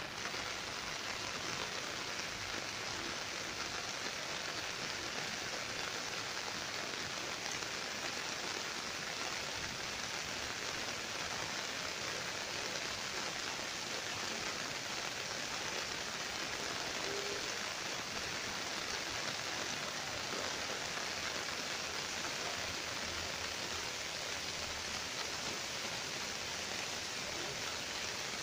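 Steady rain falling, an even hiss of drops that holds unchanged throughout.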